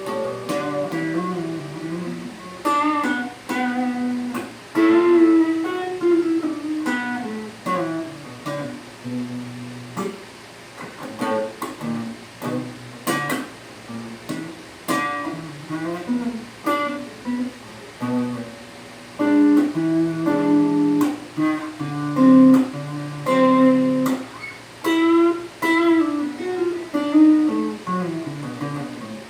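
Squier Telecaster Standard Series electric guitar being played: melodic single-note runs mixed with chords, each note picked with a sharp attack and left to ring.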